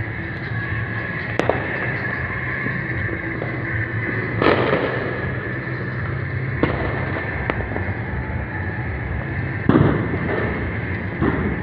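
Distant fireworks and firecrackers going off across a city: about half a dozen scattered bangs, the loudest about four and a half and ten seconds in, each trailing a rolling echo, over a steady background hum.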